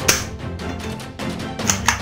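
Background music, with sharp plastic clacks as a toy pump-action rifle with a scope is lifted from a pile of plastic toy guns: one just after the start and two close together near the end.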